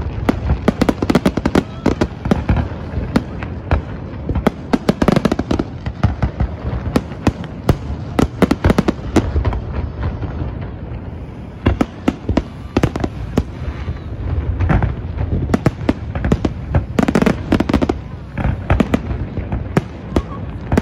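Fireworks display: a dense, rapid barrage of aerial shells bursting with bangs, booms and crackles. The barrage thins out briefly about halfway through, then picks up again.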